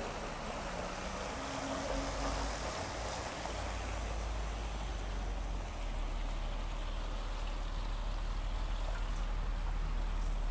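Double-articulated bus driving past on a wet road: a steady hiss of tyres on wet asphalt over a low rumble.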